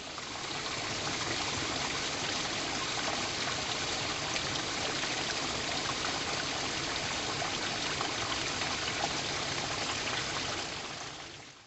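Steady rushing of falling water from a waterfall and its stream, fading in at the start and fading out near the end.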